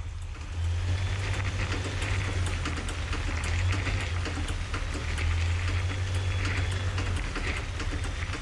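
Ford Ranger's drivetrain in 4x4 mode under acceleration while turning: a steady low drone with irregular clicking and knocking running through it. The knock comes from bolts that had worked loose.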